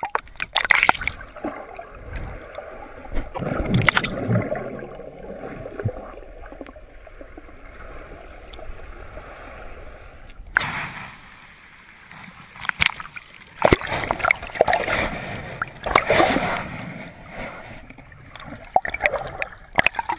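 Sea water splashing and gurgling around a camera in shallow water as it moves underwater and breaks the surface, with irregular sharp splashes and muffled sloshing.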